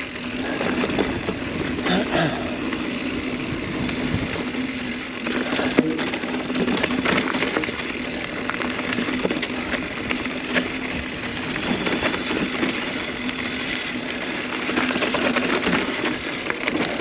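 Mountain bike descending a loose dirt trail: tyres crunching over dirt and rocks, with frequent clicks and knocks from the bike rattling over bumps and a steady low hum underneath.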